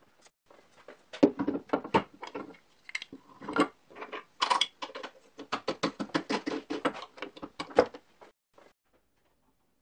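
Aftermarket roller-bearing blade guides being removed and fitted on a homemade wooden bandsaw: a quick run of short clicks, taps and knocks of metal parts against the wooden frame, stopping about a second before the end.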